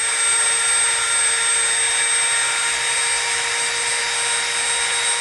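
Dremel rotary tool with a sanding drum spinning at high speed, lightly sanding the top edge of a small EVA foam disc: a steady, high-pitched motor whine over a sanding hiss.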